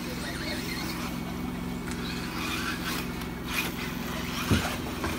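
Mini radio-controlled race cars running on the track over a steady low hum, with a single knock about four and a half seconds in.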